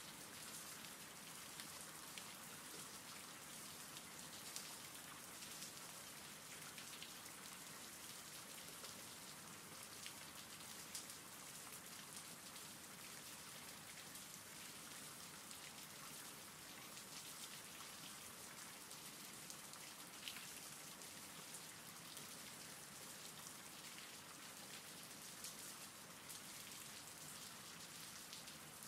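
Faint, steady rain falling: an even hiss with scattered ticks of single drops.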